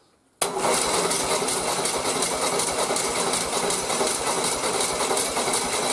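Starter motor cranking an air-cooled VW flat-four engine on a bellhousing bench rig, without it firing, to build up oil pressure before a start. The steady cranking starts abruptly about half a second in.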